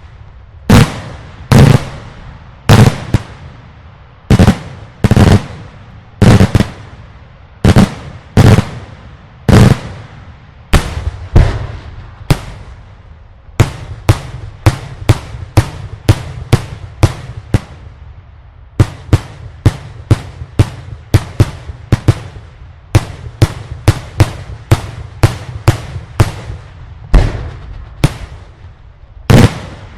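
Daylight fireworks display: a continuous barrage of loud aerial shell bursts, sharp bangs each followed by a rolling echo. They come about once a second at first, then about twice a second from midway on.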